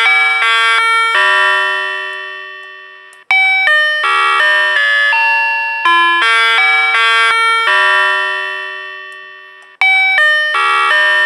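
A vehicle reversing horn plays a chime-like electronic melody as its backing-up warning. The phrase of stepped notes ends on a long fading note and starts again about every three seconds.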